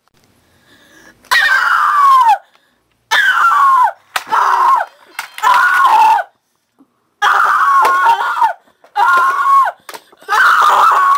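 Seven loud, high-pitched screams in a row, each sliding down in pitch and lasting up to about a second, with short silent gaps between them.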